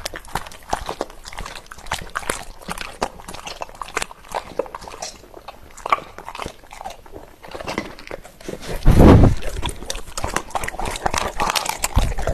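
Large dog eating raw chicken: wet chewing and smacking with a quick, irregular run of clicks and crunches. One louder, low thump-like noise about nine seconds in.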